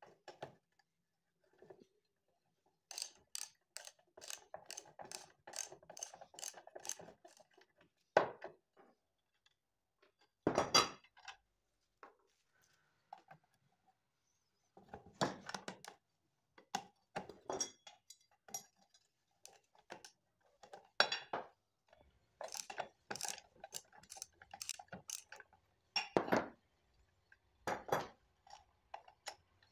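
Socket ratchet wrench clicking in runs as it works the bolts on a pipe vise's toothed jaw, with clinks of metal parts and tools being handled.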